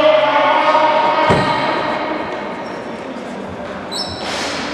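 Tchoukball play echoing in a sports hall: a shout at the start, a ball thud a little over a second in, and a short high squeak with scuffing near the end, like shoes on the court.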